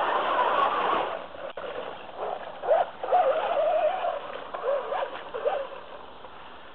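Traxxas Slash 4x4 RC truck's brushless electric motor driving through a shallow creek: water splashing for about the first second, then the motor whine rising and falling with the throttle.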